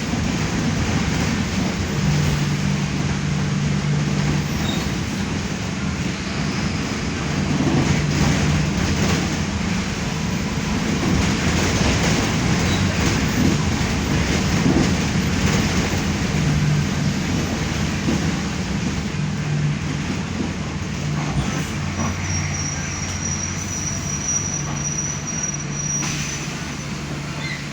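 Mercedes-Benz OF-1519 Bluetec 5 city bus underway, its diesel engine running with a steady low note that steps up and down in pitch several times as the bus drives along, over road and body rattle noise. A faint high whistle joins in for a few seconds near the end.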